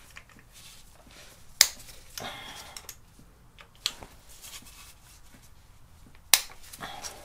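An Allen key working a bracket bolt loose in front of a motorcycle's oil filter, giving sharp metal clicks. Two loud clicks come about a second and a half in and again near the end, with fainter ticks and taps between them.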